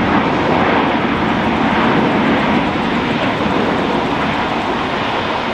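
Jet airliner engine noise: a loud, steady rush that eases slightly toward the end.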